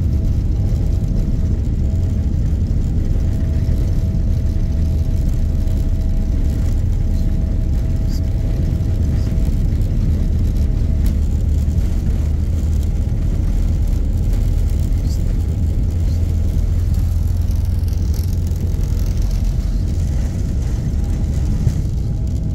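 Airliner engines running, a steady low rumble with a faint steady whine that fades out about halfway through.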